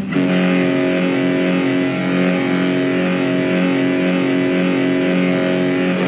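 A ship's horn sounding one long, steady blast of several tones together, starting and cutting off abruptly.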